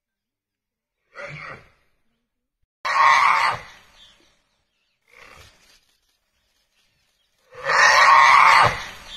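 Rough, noisy animal calls from a tiger and a wild boar fighting: four calls, a short faint one, a loud one about a second long, another short faint one, then a long loud one near the end.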